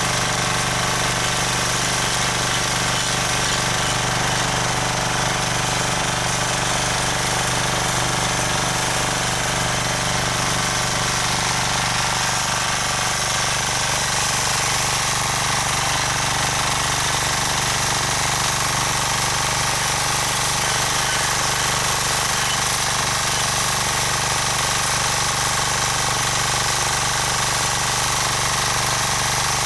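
Rotakt walk-behind rotary tiller's petrol engine running steadily under load as its tines churn the soil.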